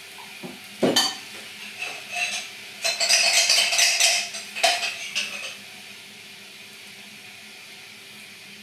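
Kitchen clatter of dishes and cutlery: a sharp knock about a second in, then a few seconds of clinking and rattling that stops past the middle, leaving a faint steady hum.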